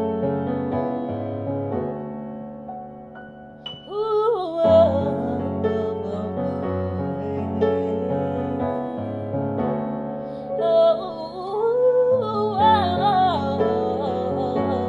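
Solo piano chords, joined about four seconds in by a woman's wordless vocal ad-libs, sliding and wavering with vibrato over the piano.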